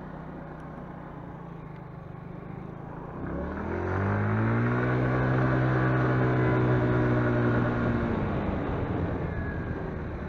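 Motorcycle engine running while riding: about three seconds in it revs up in pitch as the rider accelerates, holds a steady note for about four seconds, then eases off near the end.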